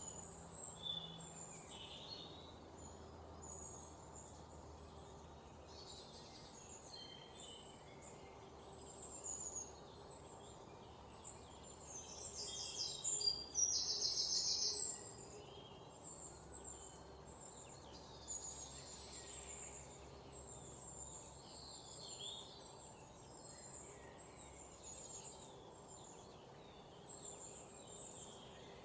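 A chorus of small birds chirping and singing in short, high-pitched calls. About twelve seconds in, one bird gives a loud, rapid trill lasting about three seconds, the loudest sound. A faint, steady background hiss sits underneath.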